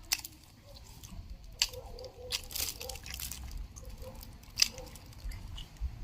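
A person chewing and biting into a firm, chewy chicken drumstick close to the microphone, with several sharp, wet mouth clicks spread through the chewing.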